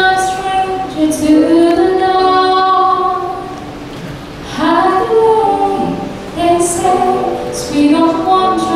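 A choir singing in held chords. The voices fall back briefly a little past three seconds in, then come in strongly again with a rising swell at about four and a half seconds.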